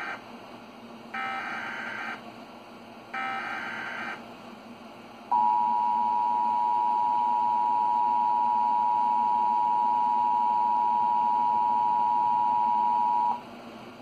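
Emergency Alert System tones from a television speaker: the tail of one SAME header data burst and two more, each about a second long and about a second apart, then the two-tone attention signal, a steady loud dual tone held about eight seconds before cutting off. The sequence signals the start of an emergency alert, here a severe thunderstorm warning.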